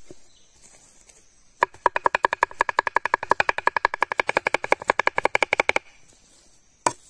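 Large broad-bladed knife chopping a vegetable kebab mixture on a wooden board: a fast, even run of blade strikes, each with a short metallic ring, lasting about four seconds, then a single chop near the end.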